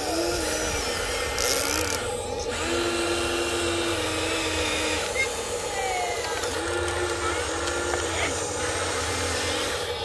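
Electric motors of a Huina remote-control model excavator whining over a steady hum, the pitch stepping up and down in spells of about a second as the boom, arm and swing move.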